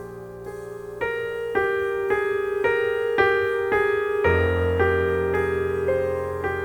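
Instrumental music: a keyboard plays a repeating figure of notes about two per second, and a low bass note comes in a little after four seconds in.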